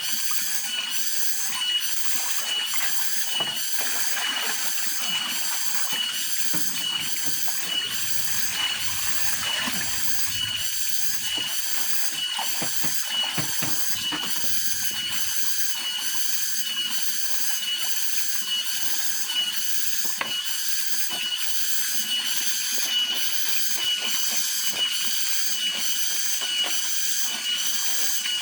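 Cicadas calling in chorus: a continuous high buzzing drone that pulses evenly about one and a half times a second, over a steady high note. Some low rustling and knocks come through in the middle.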